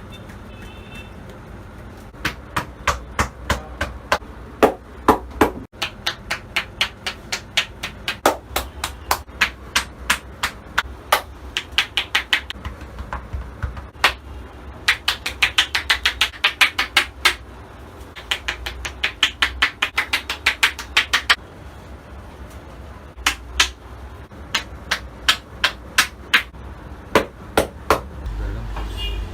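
Rapid percussive massage strokes: a masseur's hands striking the head, neck and shoulders in fast even slaps and chops, several a second, in runs of a few seconds broken by short pauses.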